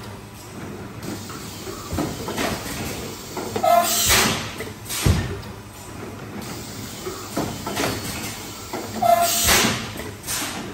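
Automatic stretch blow molding machine running its cycle: two loud bursts of hissing compressed air, about four seconds in and again near the end, with sharp mechanical clacks from the mould and transfer parts in between.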